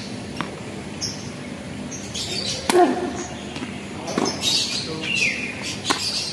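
Tennis ball struck by rackets three times in a rally, about a second and a half apart, the first hit the loudest. Birds chirp in between, with a falling chirp near the end.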